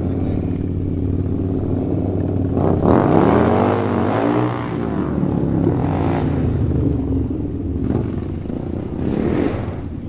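A group of motorcycle engines running steadily. About three seconds in, one engine revs up and falls back, and it swells again around six seconds and near the end.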